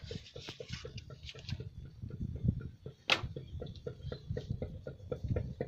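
A run of light, irregular taps and clicks, about four or five a second, with one sharper click about three seconds in.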